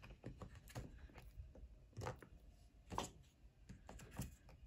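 Faint, irregular light clicks and taps of liquid lipstick tubes being pushed back into their slots in a lip kit box.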